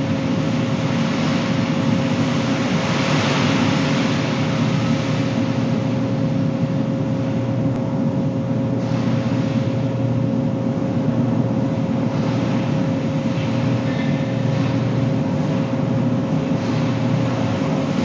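Scrap truck's heavy diesel engine running steadily under load as the truck pushes its scrap off into a scrap bucket, with a constant tone held over a broad noisy rumble.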